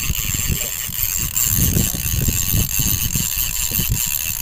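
Fishing boat's engine running steadily, with wind rumbling on the microphone.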